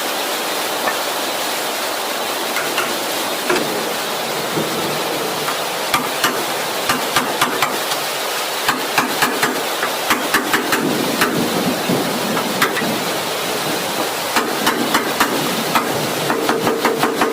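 Hammer tapping on a pickup's sheet-metal body panel in quick runs of light strikes, several a second, over a steady hiss.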